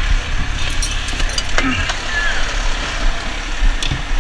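Fire engine running with a steady low rumble, under the rustle and a few clinks of a firefighter's turnout gear as he climbs down out of the cab.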